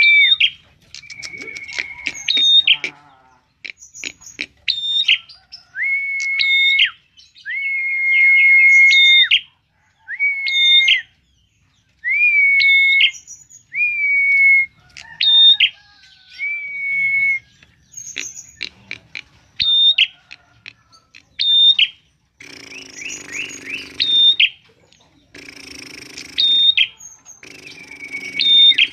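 A prinia (prenjak) singing a loud, repeated phrase about every two seconds: a held whistled note followed by sharp higher notes. The last several seconds carry a rougher, buzzier sound under the song.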